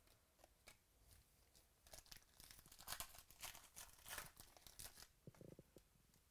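Foil trading-card pack wrapper being torn open, crinkling and crackling from about two seconds in until about five seconds. Before it there are a few light clicks from the cards being handled.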